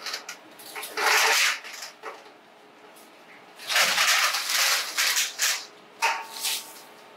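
Plastic PEX pipe scraping and rustling in bursts as a long length of it is paid off a coil and fed up through a manhole.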